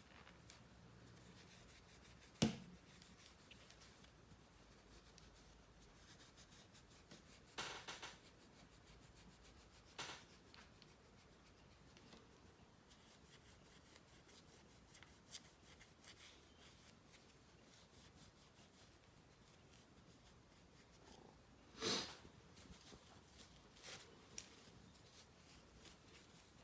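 Faint handling of a metal sonic screwdriver replica prop being polished with a cloth: light rubbing, broken by a handful of sharp clicks and knocks, the loudest a couple of seconds in and near the end.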